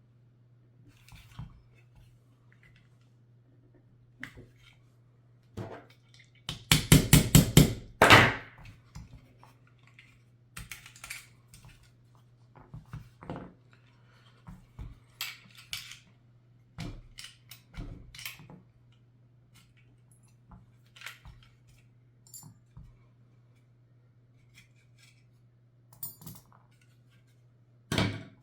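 Scattered clicks, clinks and knocks of Glock pistol and trigger parts being handled during a trigger swap, with a quick run of about eight loud sharp clicks about seven seconds in and another loud knock near the end.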